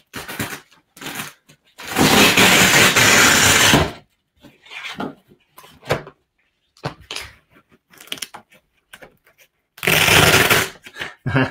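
Packing straps being pulled loose: two long ripping, rasping sounds of about two seconds each, with shorter rustles and scrapes between them.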